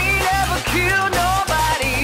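Pop music with a steady, pulsing bass beat and a gliding melody line over it.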